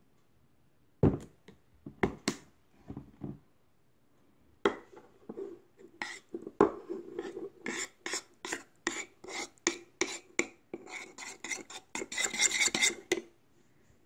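Kitchen utensils knocking and scraping against a dish: a few separate knocks, then a run of quick strikes about three or four a second, ending in a brief burst of rapid scraping.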